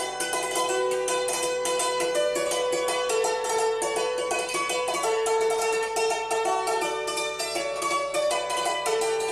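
Background music: a string instrument playing a melody in fast repeated notes.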